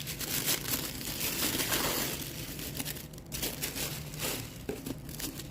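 Packaging crinkling and rustling as a box is opened and its contents handled, busiest in the first few seconds, then in scattered bursts.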